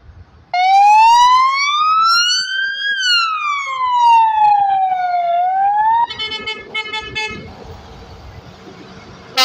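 Police car siren wailing: one slow rise and fall in pitch over about five seconds, starting to rise again. It gives way to about a second and a half of a rapid pulsing tone, then steady engine and traffic noise as the escorted truck approaches.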